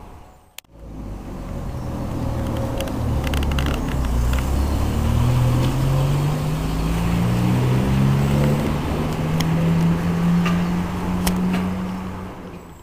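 Lorry's diesel engine pulling away, its pitch climbing in steps as it changes up through the gears, then fading near the end.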